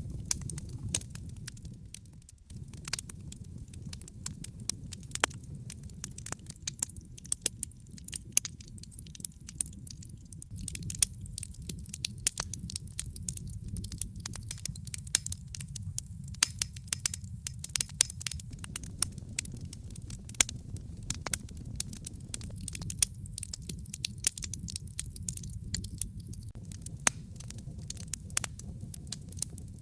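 Wood fire burning in a fireplace, crackling with frequent sharp pops and snaps over a steady low rush of the flames.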